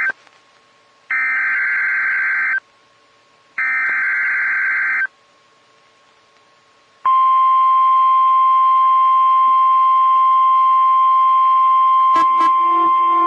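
Emergency Alert System SAME header on NOAA Weather Radio: the end of one burst of buzzy digital data tones, then two more bursts about a second apart, each about a second and a half long. About seven seconds in comes the weather radio's 1050 Hz warning alarm tone, one steady loud tone that announces the next warning. About a second before the end, two clicks sound and a lower second tone joins in.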